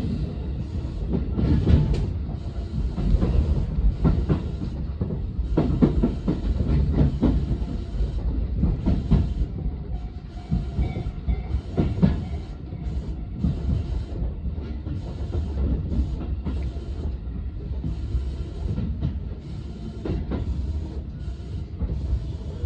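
Tobu Railway electric train running along the line: a steady rumble with irregular clacks of the wheels over rail joints.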